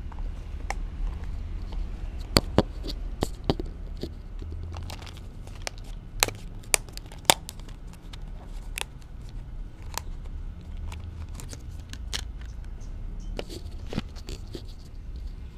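Scattered sharp clicks and crackles of hard plastic food tubs and dry kibble knocked about by a kitten nosing and pawing at them, over a steady low rumble. The loudest clicks come in two clusters, a couple of seconds in and again about halfway.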